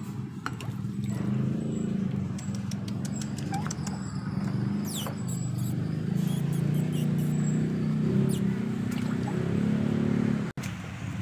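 Shih Tzu puppies giving a few faint, short squeaky whimpers over a steady low hum.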